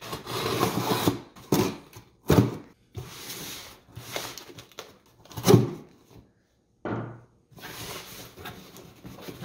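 A cardboard shipping box handled on a wooden table and its packing tape torn open: noisy ripping and rustling of cardboard, with several knocks of the box against the wood, the loudest about five and a half seconds in.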